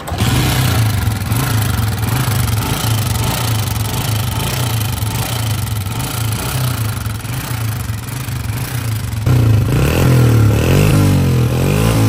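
Honda CG 125's single-cylinder pushrod engine kick-started, catching at once and running, then revved up and down several times from about nine seconds in. The engine is noisy inside, a noise the mechanic puts down mainly to faulty push rods and low oil.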